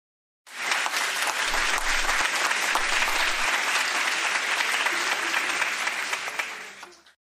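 Crowd applause, a steady even clapping that starts about half a second in and fades out near the end.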